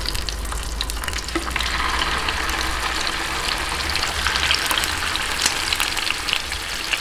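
Milkfish pieces sizzling and crackling in hot oil in a frying pan, the sizzle growing louder a second or two in as more pieces go into the pan.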